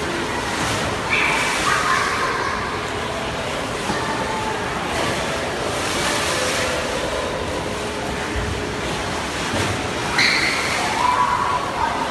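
Water in a cruise ship's swimming pool sloshing and surging against the pool walls, splashing up over the edge, as the ship rolls in rough seas.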